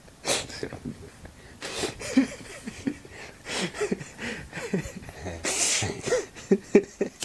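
A man laughing in several wheezy, breathy bursts, with short broken bits of voice between them.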